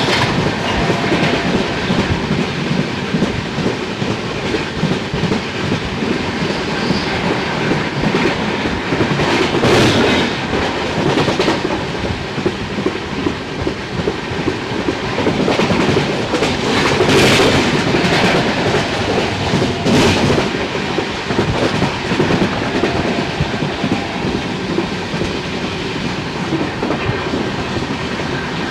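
Passenger express train running at high speed: a steady rush of wheels clattering over the rails, with a few louder surges of rattle about ten, seventeen and twenty seconds in.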